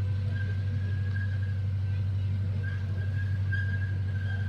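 Zoo train passing close by: a steady low engine drone, with a faint high tone that comes and goes over it.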